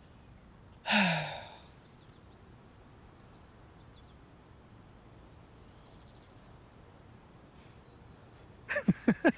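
A person sighs once about a second in, a breathy exhale falling in pitch, over a faint, rapid high chirping. A few short vocal sounds come near the end.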